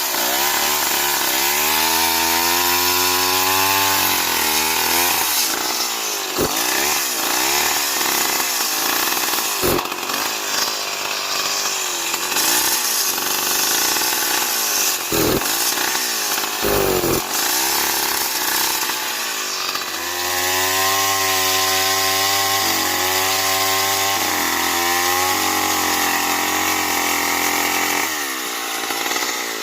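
STIHL MS 070 chainsaw, a large two-stroke, running and cutting wood, its engine pitch rising and falling as it works. A noisier middle stretch carries several short low thumps.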